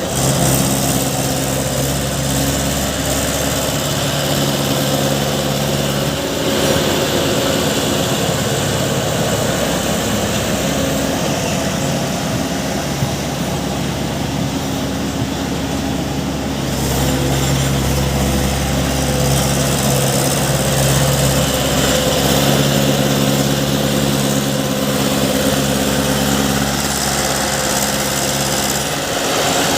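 Diesel engines of a JCB 3DX backhoe loader and a tractor running under work. The engine note shifts up and down in stretches of several seconds as the machine works.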